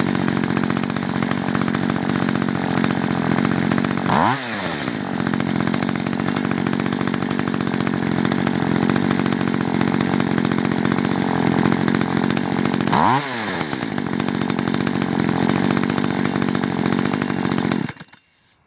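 A two-stroke chainsaw engine runs steadily at about 5,000 to 5,400 rpm. The note briefly wavers twice, and the sound cuts off suddenly near the end.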